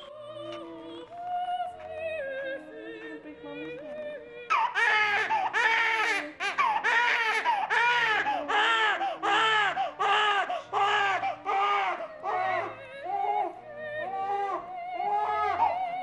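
Newborn baby crying in short wails that rise and fall in pitch, about one and a half a second, starting suddenly about four and a half seconds in. Soft music plays before the crying and faintly beneath it.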